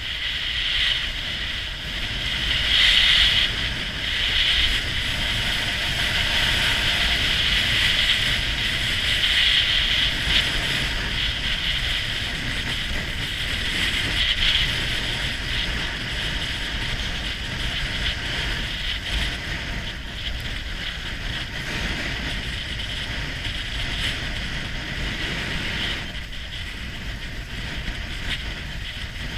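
Burton Canyon snowboard sliding and carving over groomed snow at speed, a steady scraping hiss, with wind buffeting the camera microphone. The hiss eases near the end.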